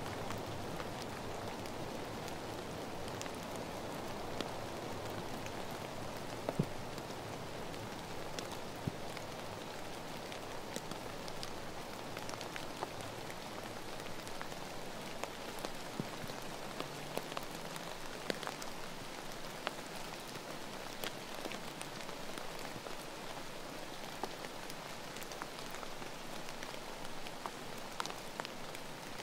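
Steady rain falling on the forest: a constant even hiss with scattered louder single drops ticking.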